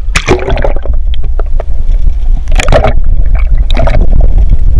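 Seawater sloshing and gurgling over a camera as it goes from the surface to underwater, with a constant low rumble and splashes about a quarter second in, around two and a half seconds in, and near four seconds in.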